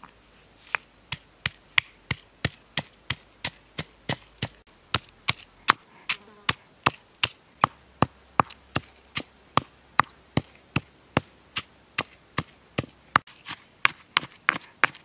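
Stone pestle pounding garlic and red chilies in a stone mortar: a steady run of sharp knocks, about two or three a second, quickening near the end as the mix is crushed to a paste.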